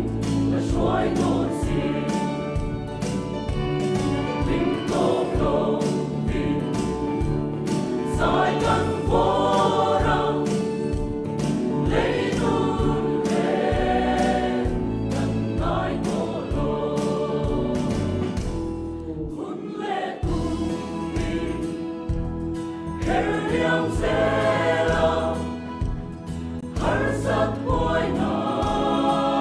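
Mixed choir of men and women singing a gospel hymn in parts, with sustained low notes under the melody and a short break between phrases about two-thirds of the way through.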